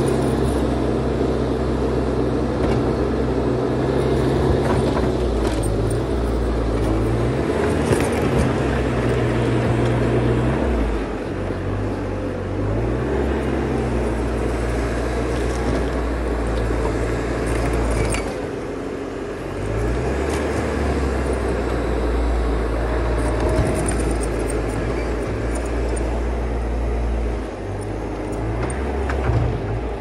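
Bobcat T590 compact track loader's diesel engine running under working load, its speed dropping and picking up again several times as the machine works and moves, with a few sharp knocks.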